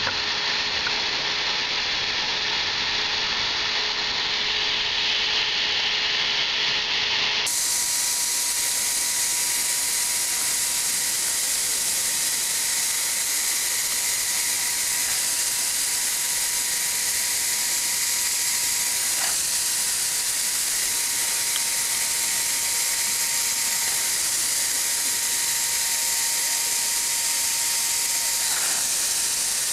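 Triac hot air welding gun running during a weld: a steady blower hiss with a constant motor whine. About seven seconds in, the whine jumps higher and the hiss turns brighter.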